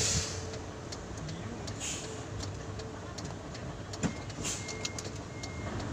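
Tractor-truck's diesel engine running at low speed, heard from inside the cab, with scattered light clicks and a single knock about four seconds in.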